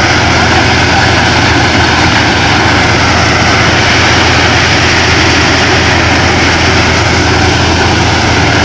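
A Mahindra 265 DI tractor's three-cylinder diesel engine driving a thresher through its PTO, the thresher drum running steadily and loudly as crop bundles are fed in. The noise is even throughout, with a deep engine drone under the rushing and clattering of the machine.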